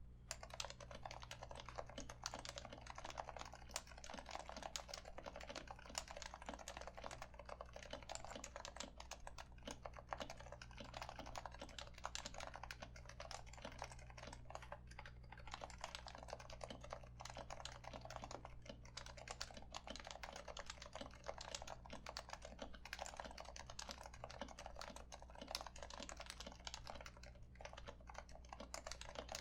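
Continuous fast typing on a Happy Hacking Keyboard Professional 2, a Topre electrostatic-capacitive keyboard with 45 g keys. The key sliders are lubed and damped with Deskeys #3 silencing rings, so the keystrokes are soft, muted thocks rather than sharp clacks.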